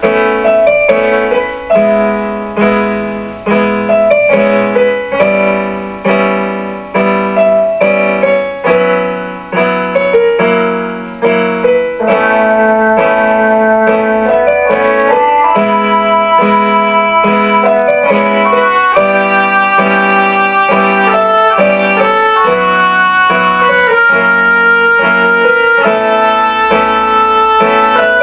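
Instrumental piano music: evenly repeated struck chords whose notes fade between strokes, then from about twelve seconds in a fuller texture of held notes with no separate strokes.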